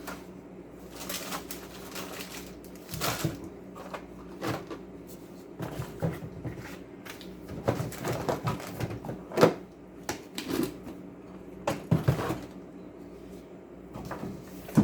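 Veterinary supplies such as syringes, tubes and packets being handled and put into a storage box: irregular clatter and rustling with a few sharper knocks.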